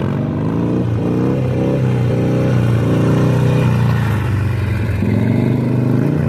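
Motorcycle engine accelerating hard through the gears: its pitch climbs, drops at each upshift, and climbs again, about five times.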